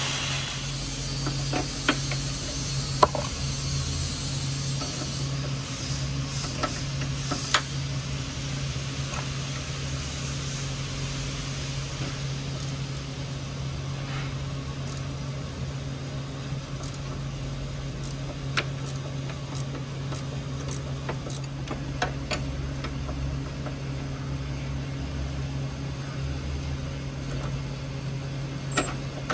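Scattered light clicks and knocks as a floor jack topped with a wooden block is positioned under a car's engine oil pan, over a steady low hum.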